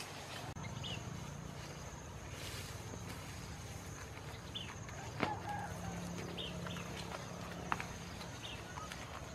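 Outdoor ambience: short bird chirps now and then over a steady high insect drone and a low hum, with the brushing of footsteps through tall grass and two sharp snaps, one about halfway through and one later.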